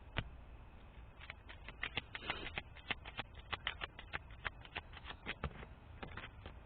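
Tarot cards being shuffled and handled by hand: a run of quick, irregular clicks and taps.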